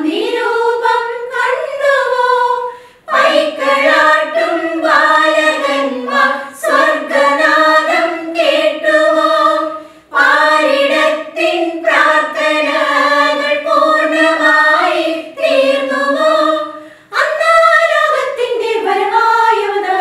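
Group of women singing a Christmas carol together without accompaniment, in phrases a few seconds long with brief breaks for breath between them.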